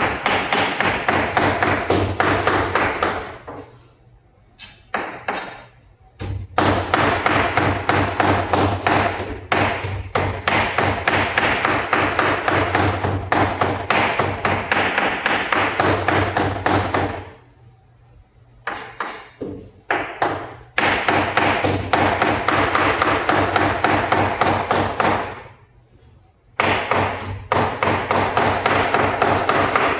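Cleaver chopping chicken into keema on a chopping block: a fast, even run of blows that stops briefly three times.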